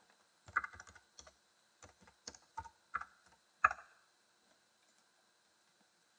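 Typing on a computer keyboard: a run of separate keystrokes entering a username and password, ending with one louder key press a little over three and a half seconds in.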